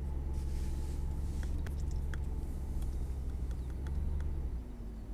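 Audi R8 engine running at low revs, a steady low hum heard from inside the cabin, which dips briefly near the end and comes back, with a few faint clicks.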